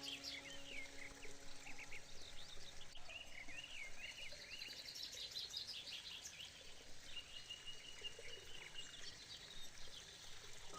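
Small birds chirping and twittering in quick, repeated high calls over a faint background hiss; a soft held music chord fades out within the first couple of seconds.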